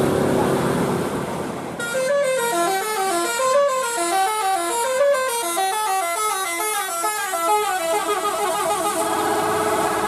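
Bus telolet horn of the basuri type playing a quick melody, its notes stepping up and down in rapid runs, starting about two seconds in and ending about eight seconds in. Vehicle engine and road noise come before it.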